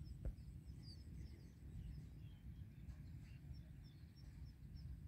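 Faint chirping of small birds, many short high notes scattered throughout, over a steady low rumble.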